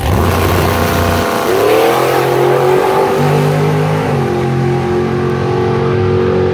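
Drag racing car launching hard from the starting line and accelerating away down the strip, its engine note rising and then changing pitch in steps a couple of times.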